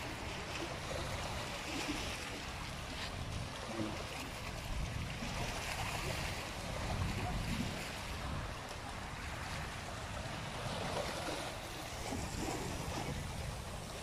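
Small waves washing against a rocky seawall, a steady water hiss with a low wind rumble on the microphone.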